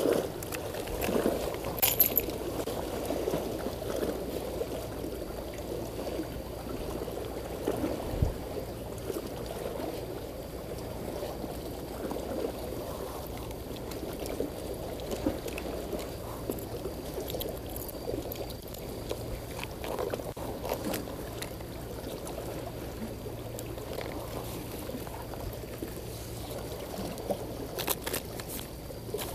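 Seawater sloshing and lapping continuously, with a steady low hum underneath and a few light clicks near the start.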